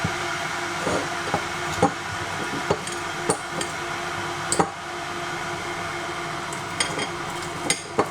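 A fork mashing a banana, knocking and scraping irregularly against the dish, over the steady rushing hiss of an electric kettle heating water towards the boil.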